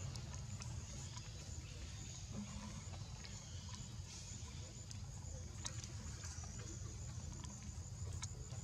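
Faint outdoor ambience: a steady high-pitched insect drone over a low rumble, with scattered small clicks and rustles.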